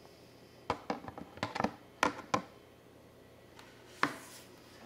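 Handling noise on a Califone 1455K record player's case: a quick run of clicks and knocks, then a single sharper knock about four seconds in as the lid is swung over.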